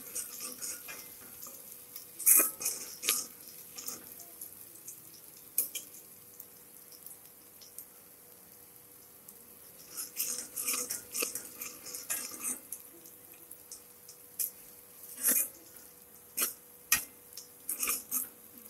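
Metal spoon scraping and clinking against a metal cooking pot while stirring frying onions, in short bursts about two seconds in, again from about ten to twelve seconds, and several times near the end.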